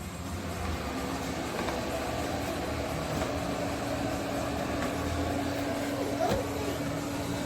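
eufy RoboVac 11S Max robot vacuum running: a steady motor and brush noise with a hum that sets in about a second in. A short knock about six seconds in.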